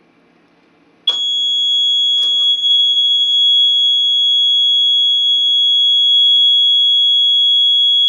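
ADE Security Systems Control keyswitch burglar alarm panel's exit-delay buzzer, starting abruptly about a second in and then sounding one loud, steady, high-pitched tone. It is the countdown signal telling the user it is time to leave. On this panel the exit delay is faulty and never times out, so the buzzer just won't stop.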